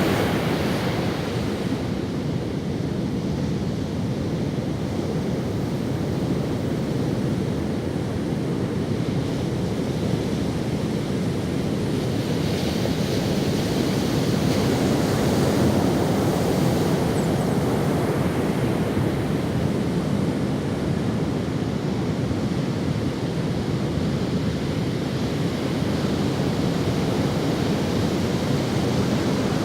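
Ocean waves washing up on a sandy beach: a steady rush of surf that swells and eases slowly as the waves break and run up the sand.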